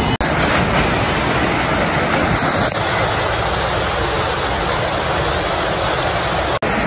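Steady, loud rush of falling and splashing water from a water-park slide or water feature, broken by two split-second dropouts, one near the start and one near the end.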